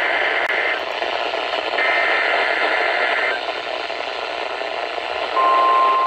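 Emergency Alert System SAME digital header bursts received off NOAA Weather Radio under steady radio static. Two buzzy data bursts sound, each about a second and a half long and a second apart. Then the steady 1050 Hz weather radio warning alarm tone starts about five seconds in.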